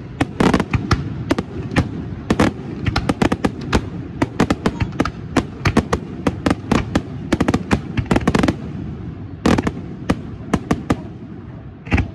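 Fireworks display: aerial shells bursting in a dense, irregular barrage of bangs and cracks, several a second. The barrage thins to a few scattered bangs in the last few seconds.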